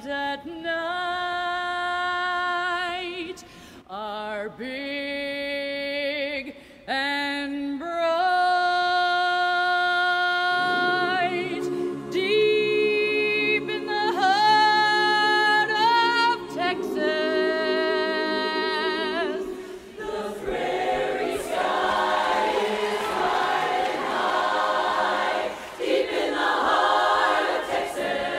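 A female soloist sings alone with a wide vibrato. About ten seconds in, a choir joins with a sustained chord beneath her voice, and from about twenty seconds in the full mixed choir sings.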